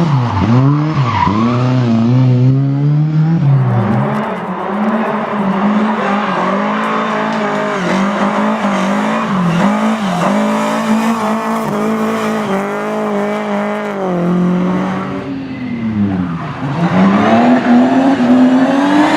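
Rally car engine revving hard, its pitch climbing and dropping again and again through gear changes and lifts, with sharp drops near the start and late on before it climbs again.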